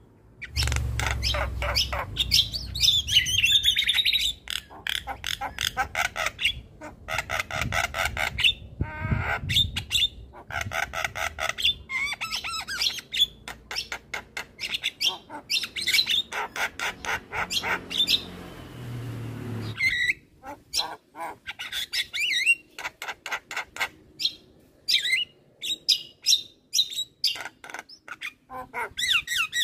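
Javan myna singing: long runs of fast, repeated harsh chattering notes mixed with squawks and whistles, broken by short pauses, with a low rumble under the first few seconds.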